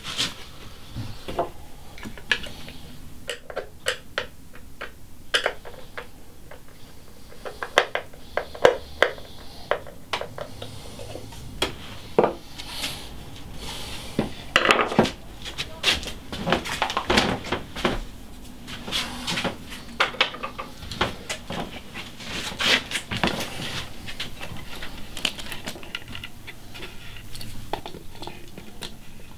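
Irregular clicks, knocks and short scrapes of a small hand tool and carved wooden puppet parts being handled and worked by hand.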